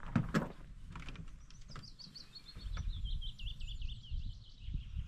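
A songbird singing one long, fast trill of repeated notes that slides down in pitch over about three seconds, over a low background rumble. A few soft knocks come just before it.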